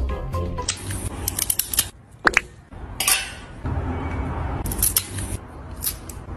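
A pet nail clipper snipping a cat's claws: a series of quick clicks at uneven intervals.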